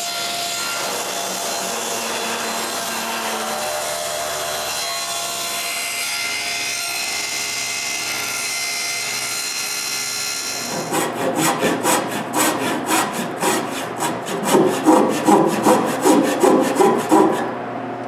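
Table saw running and cutting a plywood panel. About ten seconds in it gives way to a rapid series of scraping strokes on wood, about three a second, louder than the saw.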